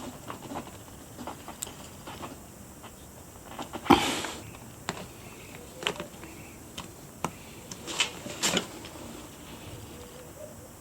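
A tubeless valve stem being pulled into a wheel rim with a steel pull-through tool: scattered clicks and knocks of metal and rubber. The loudest is a sharp knock about four seconds in, as the stem is drawn through the valve hole toward its seat.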